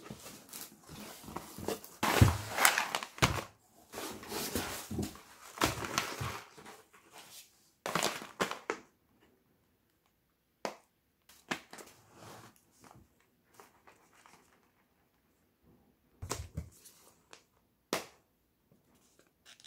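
Cardboard shipping box and kraft-paper coffee bean bags rustling and crinkling as they are handled and lifted out. The rustling is heaviest in the first few seconds. After that come only a few short taps and rustles.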